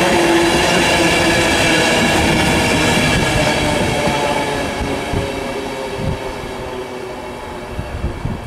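InterCity 225 express train, Mark 4 coaches with a Driving Van Trailer at the rear, passing at speed: a loud rush of wheels on rail with several steady tones, fading about halfway through as the train draws away. Wind buffets the microphone near the end.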